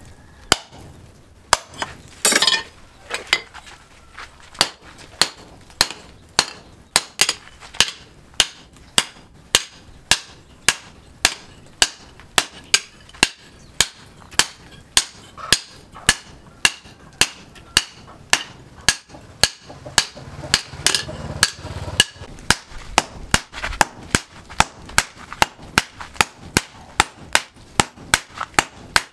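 Hand hammer beating red-hot car-axle steel into an axe head on a steel anvil: a steady run of sharp metallic blows, about two a second, each with a short ring.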